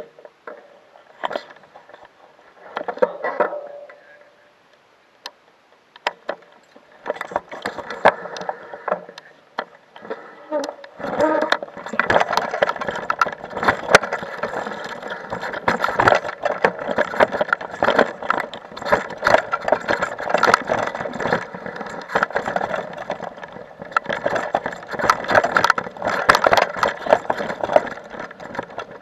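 Mountain bike riding over a rough dirt singletrack: the frame, chain and tyres rattle and clatter with every bump. It starts faint with a few clicks, and about a third of the way in becomes a continuous, busy rattle.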